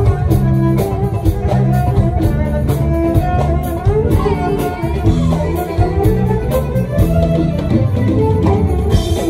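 Live band music with a steady percussion beat: an instrumental passage with no singing.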